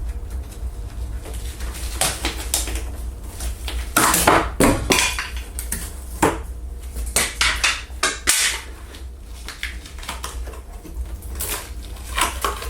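Irregular clatters, knocks and scrapes of thin CNC-cut wooden pieces being handled and set down, busiest in the middle, over a steady low hum.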